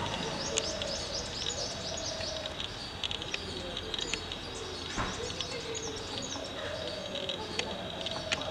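Coppersmith barbet calling a train of short, low, repeated notes, with many high chirps from other small birds alongside.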